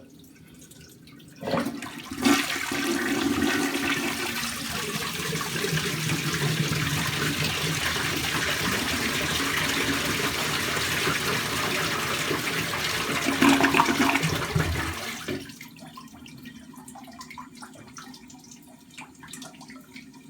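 1989 Universal-Rundle toilet, uninstalled and standing in a bathtub, being flushed: a knock of the handle, then loud rushing water for about thirteen seconds that swells briefly near the end and stops suddenly. A much quieter running water sound carries on after it.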